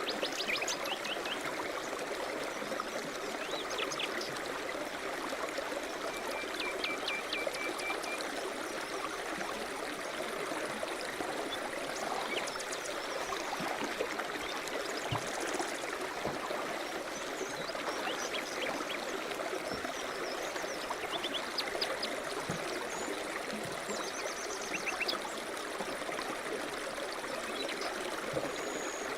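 River rapids rushing steadily, with short bird chirps and a brief trill coming in now and then.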